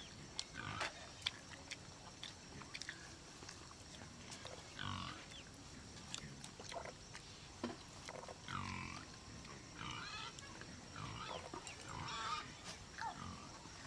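Close-up eating sounds: chewing and lip-smacking on a mouthful of rice and curry, with small clicks of fingers on steel plates.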